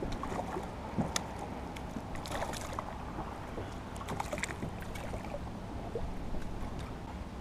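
Hooked crappie splashing at the water's surface beside a small boat: a few short splashes about two and four seconds in, over a steady low rumble of wind and water.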